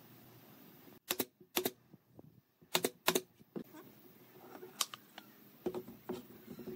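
Pine boards and the wooden frame of a folding stool knocking against each other and the workbench as they are handled: about eight sharp wooden clacks, starting about a second in, some close together in pairs.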